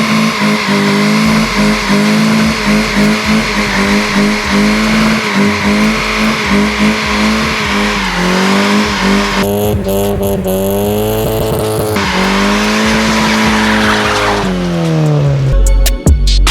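Honda Civic EJ1 doing a burnout: the engine is held at high revs with a steady tone while the tires spin and squeal. The revs dip once midway and fall away near the end, where music begins.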